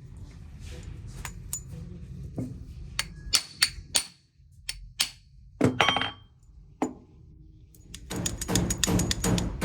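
Small metal parts clinking and tapping as they are handled, a string of separate sharp clicks and knocks, then a fast run of rhythmic knocks near the end.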